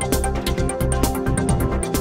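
Electronic music with a steady beat.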